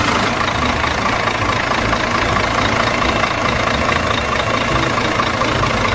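A vehicle engine running steadily, a dense rumbling noise.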